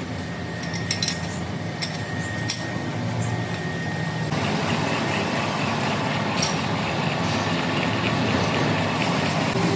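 Heavy factory machinery running with a steady rumble, with scattered metallic clinks in the first few seconds. A steady high whine cuts off about four seconds in, and the noise then carries on fuller and steady.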